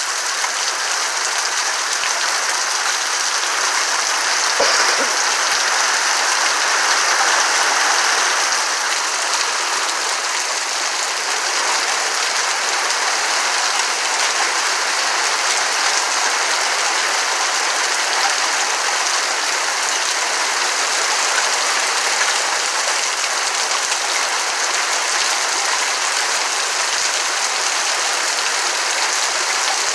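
Summer rain falling steadily on tree leaves, an even hiss that swells a little about five to eight seconds in.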